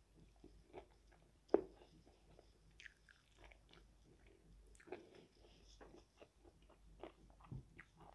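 A person biting and chewing crispy fried food: irregular soft crunches and smacks, with one sharp, louder crunch about a second and a half in.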